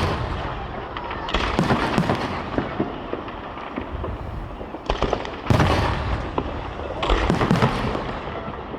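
Aerial fireworks going off: a series of sharp booms from shell bursts, each followed by crackling and echoing. The loudest bursts come right at the start and about five and a half seconds in.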